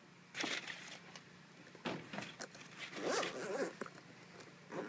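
Hands handling a padded soft case, with scattered short rustles and knocks. About three seconds in there is a short call that rises and falls in pitch.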